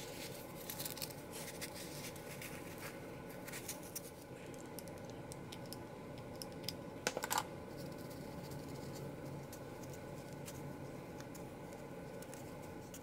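Hands handling craft material at a table: light rustling, scratching and small ticks as a brown sheet is folded and pressed around a disc and glued with a hot glue gun, with a quick cluster of sharper clicks about seven seconds in. A faint steady hum runs underneath.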